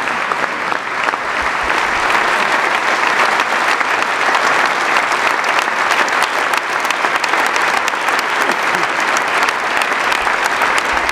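Large audience applauding: dense, steady clapping from a full hall, a standing ovation.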